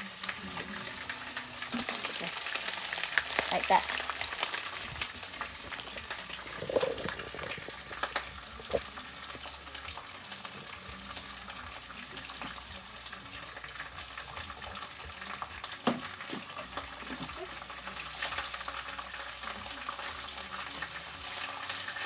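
Strips of beef frying in hot olive oil in a pan: a steady sizzle, stronger for a couple of seconds near the start, broken by a few sharp clicks of the utensil against the pan.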